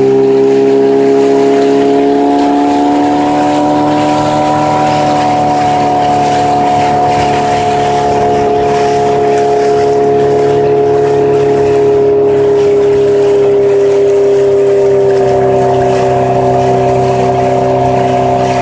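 Outboard motor of a coaching launch running steadily at cruising speed, its pitch rising a little a few seconds in and easing back down.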